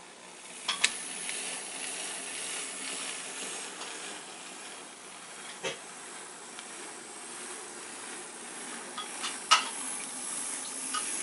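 Bachmann N scale 2-8-0 Consolidation model steam locomotive and its train running along the track: a steady hiss that grows slightly louder toward the end. Three short clicks break it, the loudest near the end.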